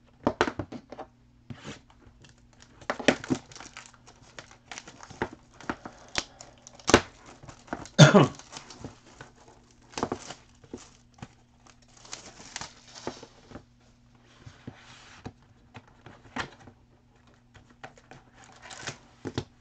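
Plastic wrapping being torn off a sealed hobby box of trading cards and the box and foil card packs being handled: irregular crinkling, crackles and taps, the loudest about eight seconds in.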